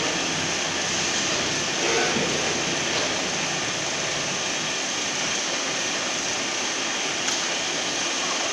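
Welding turning roll running: its electric gear motors and worm gearboxes give a steady, even mechanical noise.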